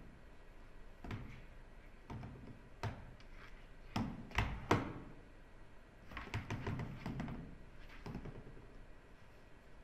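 Irregular knocks and thumps of a stuffed toy bumping about on a dresser top. The two loudest come close together about four and a half seconds in.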